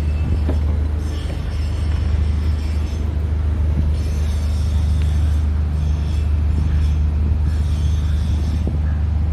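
Steady low drone of shipboard machinery running, even and unbroken.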